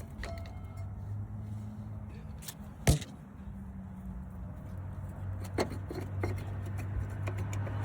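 Truck engine running steadily with a low hum, with one sharp click about three seconds in and a few lighter clicks and rattles later.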